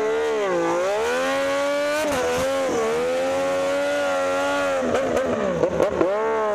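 Moto2 race bike's Triumph 765 cc three-cylinder engine held at high revs for a burnout, the rear tyre spinning. The revs dip and climb again several times, most sharply near the end as the bike pulls away.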